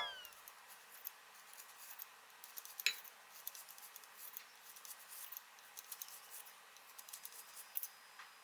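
Faint, scattered clicks and taps of kitchen prep work, with one sharper knock about three seconds in.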